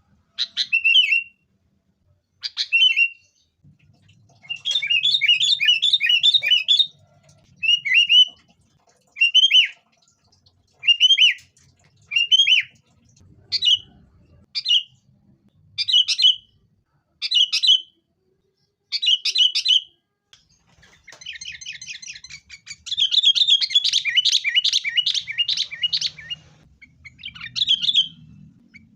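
Sooty-headed bulbul (kutilang) calling: short, bright phrases repeated about once a second. They break into rapid chattering runs about five seconds in and again from about 21 to 26 seconds.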